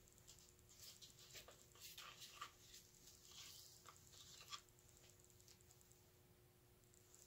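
Near silence, with faint scattered small rustles and ticks from gloved hands and a stick working at a wet, paint-covered canvas, stopping about four and a half seconds in.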